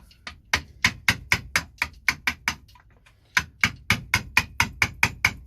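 A mallet striking a chisel in a steady rhythm of about four blows a second, chopping waste out of a wooden block to form a recess. The blows pause briefly about three seconds in, then carry on.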